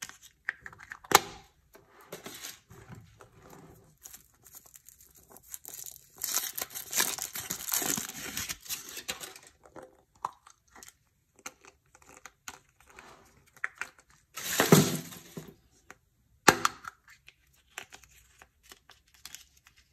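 Crinkling and tearing of the foil wrapper on a Chupa Chups chocolate surprise ball, with handling of a clear plastic toy capsule and its paper leaflet. Sharp snaps about a second in and again near the end, likely the capsule being clicked open or shut.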